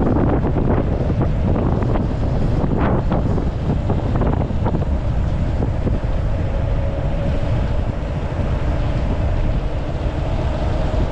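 Motorcycle riding on the road: wind buffeting the microphone over the engine's steady running. About halfway through, a faint steady engine tone comes through the rumble.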